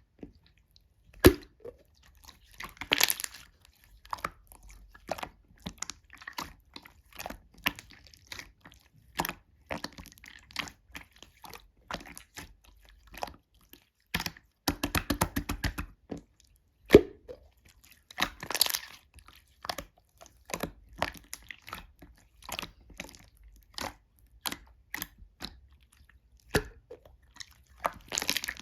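Slime being squished and poked by hand: a string of sharp sticky pops and crackling clicks, with a fast rattle of clicks about halfway through and a few longer crinkly crackles.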